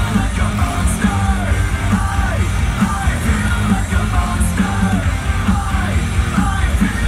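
Loud hard-rock music over a sound system, with yelled and sung vocals over a steady driving beat.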